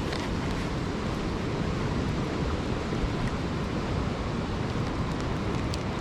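Steady rushing noise of flowing river water mixed with wind on the microphone.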